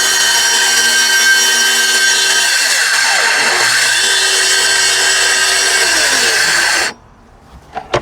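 Plunge track saw running and cutting through half-inch wall sheathing along its track, a steady motor whine that shifts briefly in the middle of the cut. It cuts off suddenly near the end.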